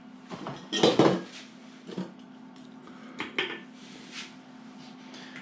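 A few light metallic clinks and knocks, the loudest about a second in, over a faint steady hum.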